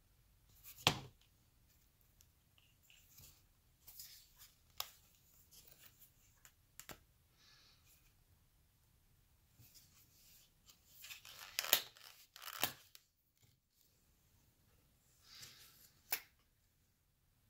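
Knife and leather scout sheath being handled: leather rubbing and rustling, with sharp clicks as the knife shifts and seats in the sheath. There is one click about a second in, a louder cluster of rubs and clicks about two-thirds through, and a last click near the end.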